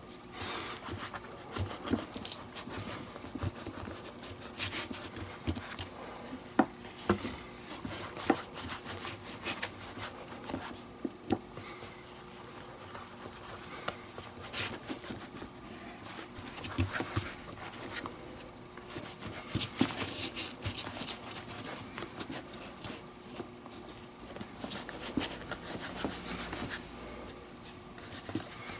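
Fingers rubbing moisturizing cream into the leather palm lining of a Zett custom infielder's baseball glove: an irregular scratchy rubbing of skin on leather, with scattered small knocks and clicks as the glove is handled.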